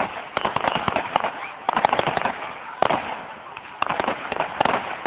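Fireworks going off: volleys of sharp crackling bangs coming in four or five clusters, separated by short lulls.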